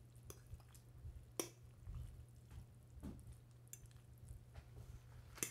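A metal fork stirring and lifting saucy instant ramen noodles in a ceramic bowl: faint wet squishing with a few light clicks of the fork against the bowl.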